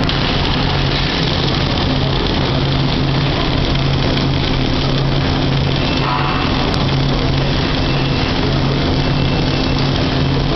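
Flux-cored arc welding: a steady hiss of the arc over the welding machine's low hum, unchanging in level throughout.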